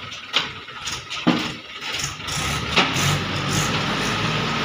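Tractor engine running as it pulls the emptied tipper trolley forward, with a few sharp knocks in the first three seconds. The engine grows louder about two seconds in, then runs steadily.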